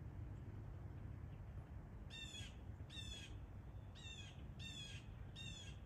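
A bird calling repeatedly: about five short, slightly falling calls, roughly one a second, starting about two seconds in, over a steady low rumble.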